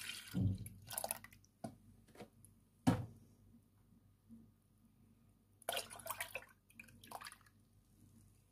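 Milk splashing from a carton into a stainless steel saucepan, stopping just after the start, then a sharp knock about three seconds in. More splashing and rustling comes around six to seven seconds in.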